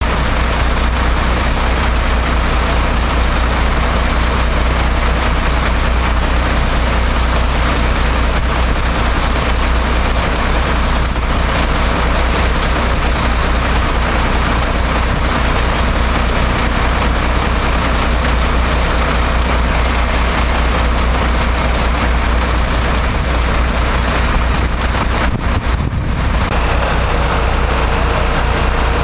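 Loud, steady engine running at idle with a deep, continuous hum.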